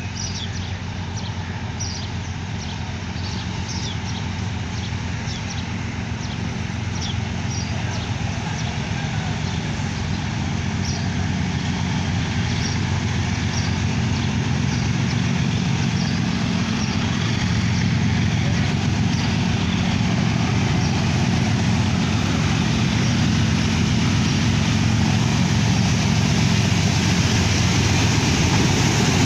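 A train led by multiple-unit Hitachi diesel-electric locomotives approaching, their engines giving a steady low rumble that grows gradually louder as they near.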